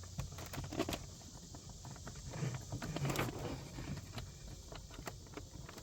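Scattered plastic clicks and rustling as wiring harness connectors are pushed into the door panel's lock and window switches and the panel is handled.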